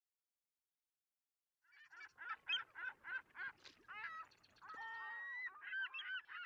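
A flock of geese calling: after about a second and a half of silence, a rapid run of short calls, several overlapping, about four a second.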